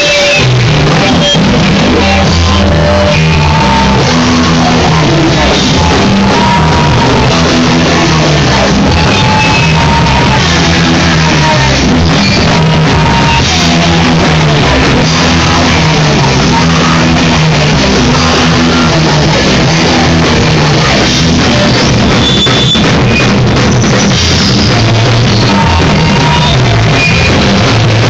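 A rock band playing loud and live: a drum kit with crashing cymbals driving under an electric guitar and a bass line that steps through its notes.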